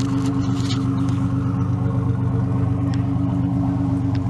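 Car engine idling steadily close by, a low, even running note with no revving.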